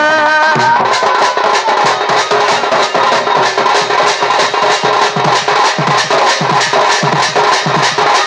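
Folk dance music driven by a double-headed barrel drum (dhol) played in a fast, even rhythm. Its deep strokes slide down in pitch and grow more prominent about halfway through. A sung line trails off about a second in.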